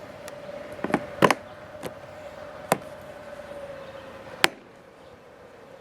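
Irregular sharp clicks and knocks of the MaxxFan Deluxe's plastic flange and clips being pressed and snapped into place on the roof adapter plate, about eight in all, the loudest about a second in and near the end. A faint steady hum underneath stops with the last knock.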